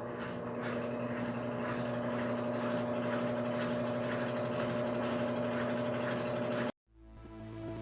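Electrolux LTD11 top-loading washing machine running, a steady mechanical hum with a faint regular ticking on top, which cuts off suddenly near the end.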